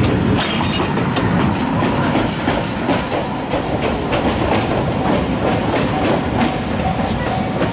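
Steam locomotive C12 66 and its passenger coaches rolling past, the wheels clicking over rail joints above a steady rumble.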